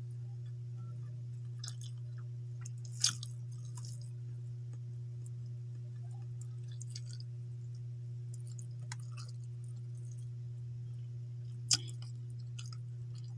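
Mouth chewing and smacking while eating rice and fish by hand, with scattered small clicks and two sharp louder smacks, one about three seconds in and one near the end. A steady low hum runs underneath.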